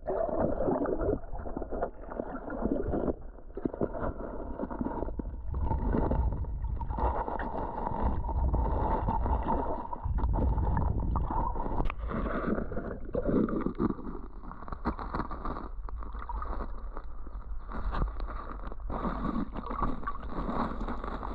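Flowing creek water heard through a submerged camera: a continuous, uneven rush of moving water that sounds dull, with most of its weight low.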